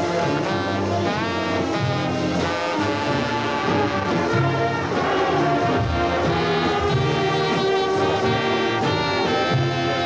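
College marching band playing a jazz-style brass number, with two brass soloists out front backed by the full band's horns. Some notes are scooped up into.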